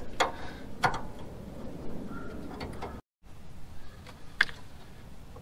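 A few sharp clicks and knocks from hands working rubber hoses and hose clamps in a car's engine bay.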